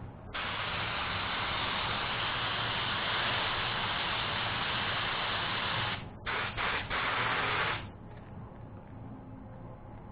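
Compressed-air paint spray gun hissing in one long steady pass of about six seconds, then three short bursts as the trigger is pulled and released.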